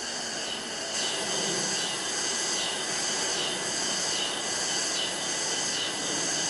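Cicadas buzzing in a high, steady chorus that swells and fades every second or so, over a low hum of city noise.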